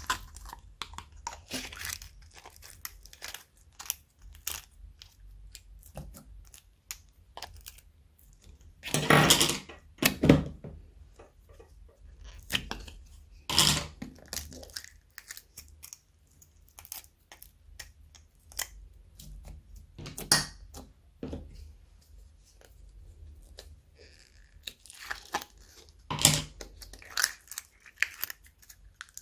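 Slime being mixed and squeezed by hand: irregular sticky crackling and clicking, broken by a handful of louder pops and crunches.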